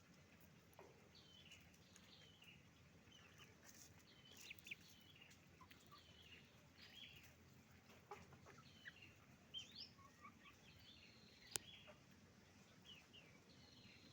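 A flock of chickens clucking and calling in many short, high notes, faint throughout. A single sharp click about eleven and a half seconds in.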